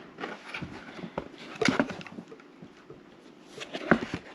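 Handling knocks and clicks as a drone remote controller is pressed and shifted into a carrying case, with two sharper knocks, one about a third of the way in and one near the end.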